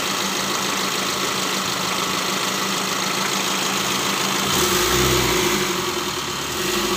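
Mitsubishi L300 diesel engine running at idle, freshly rebuilt after a seized connecting rod on cylinder number 3, and now running fairly smoothly. About two-thirds of the way in it is revved lightly and its note deepens and grows louder.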